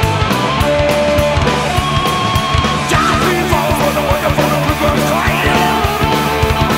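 Rock band recording: electric guitars over bass and a steady drum beat, with a guitar line bending in pitch about three seconds in.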